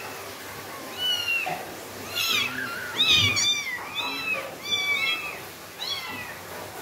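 Young kittens mewing: about a dozen short, high-pitched cries in quick succession, starting about a second in, as they are picked up by hand.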